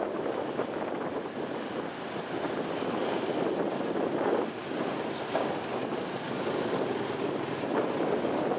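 Wind buffeting the microphone of a moving motorbike, a steady rushing noise.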